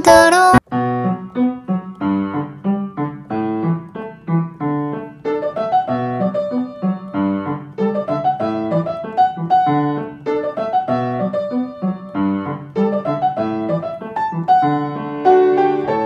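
Background piano music: a solo piano playing a gentle run of single notes and chords, starting just after a louder song cuts off about half a second in.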